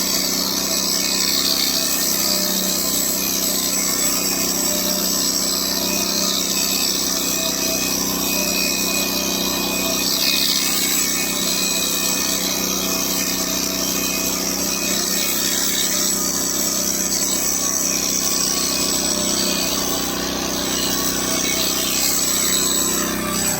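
Electric hair clippers running steadily, a continuous motor buzz.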